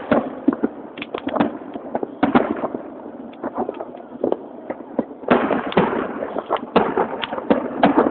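Fireworks display: many sharp bangs and crackles at irregular intervals, coming thickest about five seconds in and again near the end.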